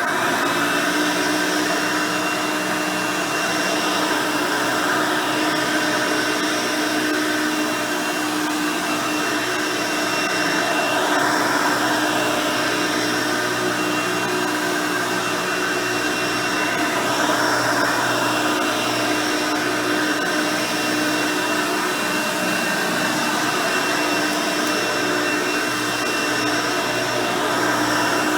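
Hoover Elite 350 upright vacuum cleaner running steadily, a whining hum from its 5-amp motor and 9-bladed fan with its brush roll spinning. It swells slightly a couple of times.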